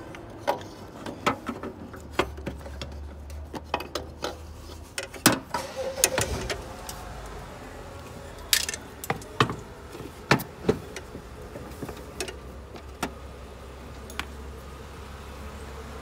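Scattered sharp metallic clinks and knocks as an A/C compressor is worked loose from its engine mounting by hand and lifted out, thinning out in the last few seconds, over a steady low hum.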